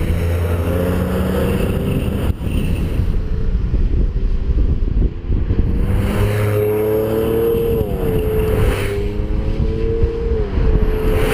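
Porsche 911 flat-six engines driving up a mountain road; from about six seconds in, one engine's note rises and falls with the throttle through a bend, over steady road noise.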